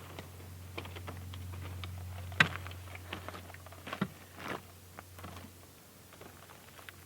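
Irregular sharp clicks and taps, with one louder crack about two and a half seconds in, over a steady low hum that fades out near the end.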